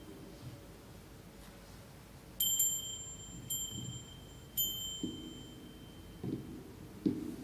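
Altar bells rung three times in quick succession, each a bright jingle that dies away within about a second, marking the priest's blessing with the monstrance at Eucharistic benediction. Softer dull knocks sound in between.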